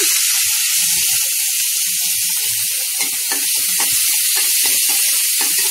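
Finely chopped onions sizzling in hot oil in a kadai: a steady, loud hiss that sets in as they go into the pan.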